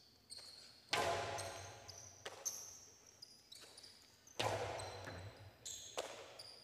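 Jai-alai pelota cracking against the fronton walls and the players' cestas during a rally: a series of sharp hits, the loudest about a second in and again about four and a half seconds in, each echoing away in the big hall. Short high squeaks come between the hits.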